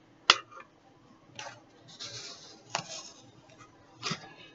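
A spice bottle being opened and shaken: a sharp click just after the start, then a few quiet taps and short rustling shakes as jalapeno powder is sprinkled into a jar.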